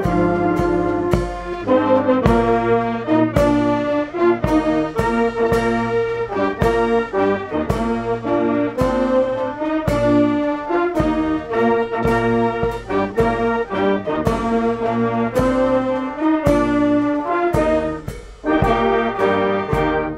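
Brass band playing, with trumpets and trombones carrying a melody over regular, sharply attacked notes and low bass notes; the music dips briefly near the end.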